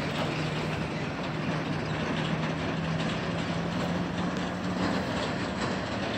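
Hot-air balloon propane burner firing, a long, steady blast of rushing noise with a low hum under it.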